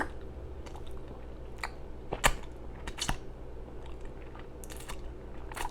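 Close-up mouth sounds of eating: wet smacking and chewing, a handful of sharp, scattered clicks, the strongest a little past two seconds in.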